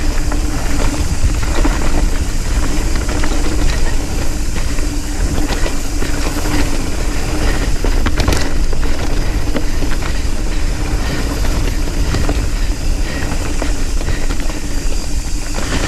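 Nukeproof Scout 275 hardtail mountain bike riding fast down a loose dirt trail: a steady rumble and rattle from tyres, chain and frame, with deep wind buffeting and a steady hum underneath.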